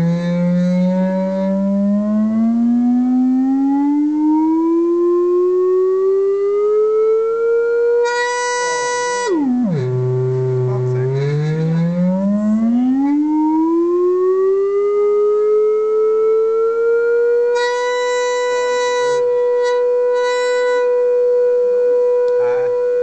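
A buzzy electronic test tone from a loudspeaker driving a wok-made hang drum, gliding slowly up in pitch, dropping suddenly low about nine seconds in, then gliding up again and holding steady for the last five seconds. It is a frequency sweep used to find the drum's vibration modes.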